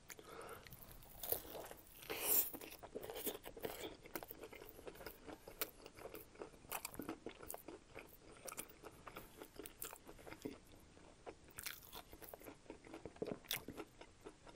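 Close-up eating of a breaded fried-chicken sandwich with bacon and cheese: irregular crisp crunches of the fried coating as it is chewed, the loudest about one to two and a half seconds in.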